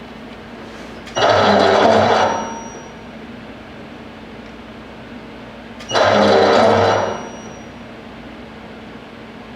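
A rebuilt Kingsbury trunnion machine unit running on a repeating cycle over a steady motor hum. A loud burst of mechanical running noise lasting about a second and a half comes about a second in and again about six seconds in, roughly every five seconds.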